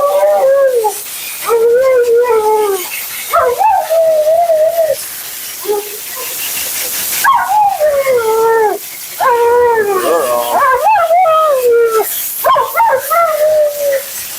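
Siberian husky howling and 'talking' in a string of about six drawn-out, wavering woo-woo calls that slide up and down in pitch, with short breaks between them.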